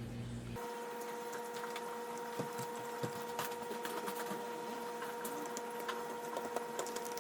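Light, irregular clicks and ticks of small screws and a screwdriver being handled and worked into a plastic headset housing. A steady faint hum sets in about half a second in.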